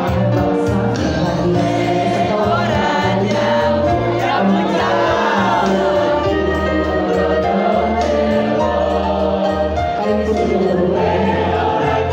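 A large mixed school choir of boys and girls singing, accompanied by an electronic keyboard playing long held bass notes.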